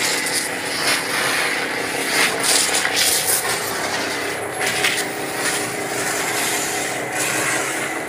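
Water from a hose spraying and splashing onto a soapy truck cab, a steady hiss that surges as the stream moves, over a continuous machine hum.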